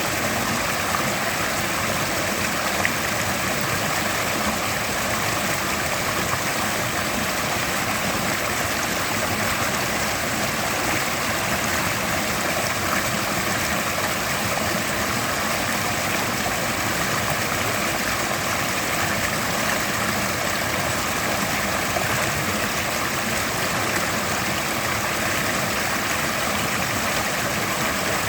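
Mountain river rushing steadily over rocks, a constant even roar of water.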